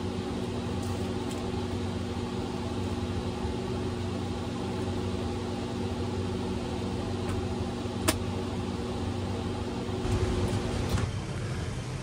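Steady machine hum with several steady tones, and about eight seconds in a single sharp clack as the outdoor electrical disconnect for the condenser is switched back on.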